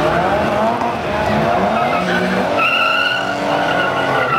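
Drift cars sliding sideways with their rear tyres spinning: engines at high revs, rising early on, with a high, steady tyre squeal joining about two and a half seconds in.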